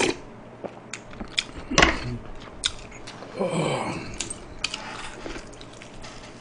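Close-miked eating sounds: hot beef-rib soup sipped from a spoon, then wet chewing and lip smacks on a braised beef rib, with many small clicks and a single sharp knock about two seconds in.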